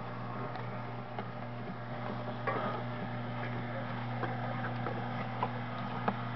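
Omega 8003 slow masticating juicer running: a steady motor hum while its auger crushes an apple, with scattered cracks and creaks as the apple is broken down.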